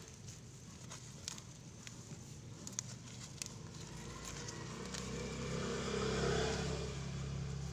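A motor vehicle's engine passing close by, swelling to its loudest about six seconds in and then easing off. Scattered light clicks and crackles come in the first half, as weeds are pulled by hand from the soil.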